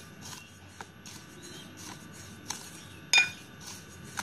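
A spoon stirring dry ground spices in a bowl, with soft scraping strokes and one ringing clink of the spoon against the bowl a little after three seconds in.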